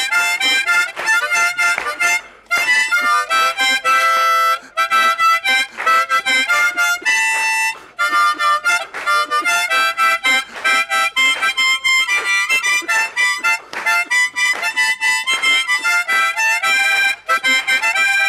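Harmonica played solo: a lively melody of quick short notes, interpreting a well-known Ivorian tune, with a few brief breaks between phrases.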